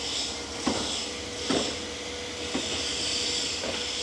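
A few light knocks and clicks, about four spread over the few seconds, from hands and tools working on the steering brake linkage, over a steady hiss and a faint hum.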